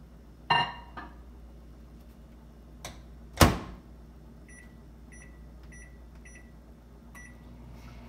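A clunk about half a second in, then a microwave oven door shut with a loud knock, followed by five short beeps from its keypad as the cooking time (1 minute 45 seconds) is entered.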